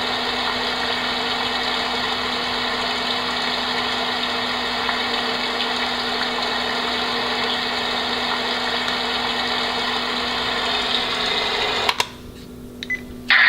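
Homedics SoundSpa white noise machine playing its rain setting: a steady, even hiss with a faint hum under it. About twelve seconds in it cuts off with a click. After a short quieter gap with a couple of small clicks, another click brings back a brighter hiss just before the end.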